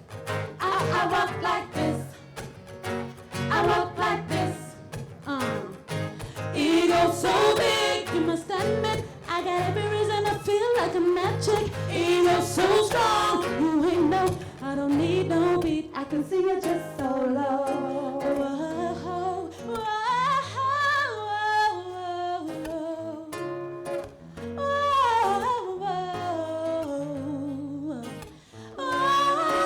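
A live vocal group singing with band accompaniment: sung lines gliding and bending in pitch over a steady bass line, at times in harmony.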